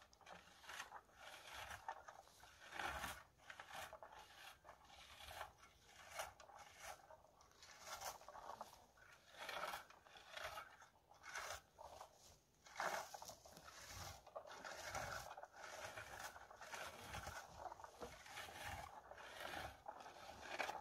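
A hand-held plastic berry picker combing through low bilberry bushes in repeated rustling, scraping strokes, one or two a second, as it strips the berries from the twigs.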